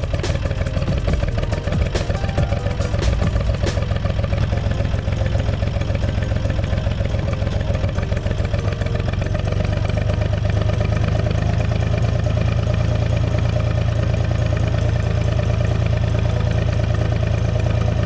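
UTB 445 tractor's four-cylinder diesel engine running while the tractor is driven, heard from the cab, with a few sharp clicks in the first four seconds. From about ten seconds in, the engine settles to a steady, even note.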